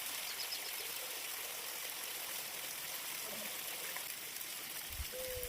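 Water running steadily, a continuous even hiss. Near the end a single held tone begins, with a few low thumps.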